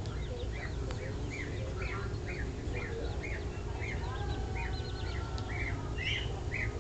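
A small bird chirping over and over, short high chirps at about two a second, over a steady low background rumble.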